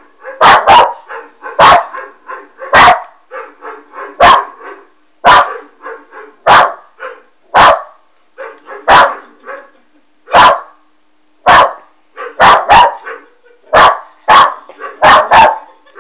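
West Highland White Terrier puppy barking sharply over and over, about one loud bark a second, sometimes two in quick succession, with fainter barking in between.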